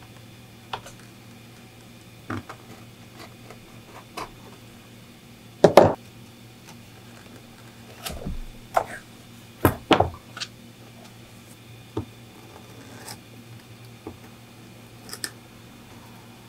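Utility knife cutting through leather on a cutting mat, with scattered sharp clicks and knocks as the knife, ruler and leather are handled. The loudest knocks come about six and ten seconds in.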